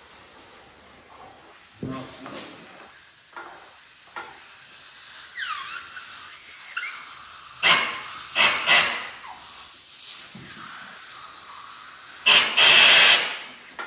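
Compressed air hissing in a few short loud blasts, then one longer blast of about a second near the end.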